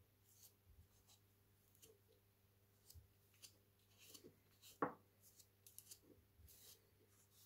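Faint scratchy rubbing of a gloved fingertip working filler paste into the cracks of a wooden handle, with small ticks and one sharper click a little before five seconds in.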